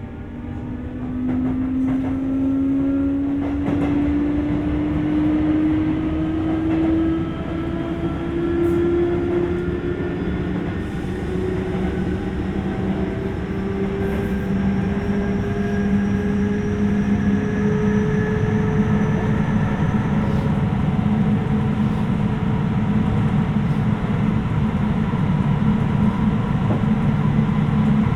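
Sotetsu 8000 series electric train heard from inside the carriage, its Hitachi GTO-VVVF inverter whine rising steadily in pitch as the train accelerates. The whine fades about twenty seconds in, leaving the steady rumble of motors and wheels on the rails, which grows louder toward the end.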